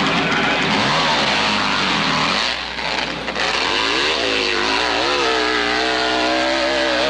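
Competition hillclimb motorcycle engine revving hard on the climb. Its pitch rises and falls with the throttle, then holds high near the end, and the sound dips briefly about two and a half seconds in.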